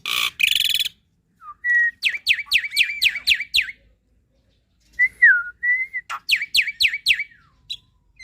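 Black-winged myna (jalak putih) singing: a harsh rasping call at the start, then clear whistled notes and two fast runs of about eight sharp, down-slurred chips each, separated by short pauses and more whistles.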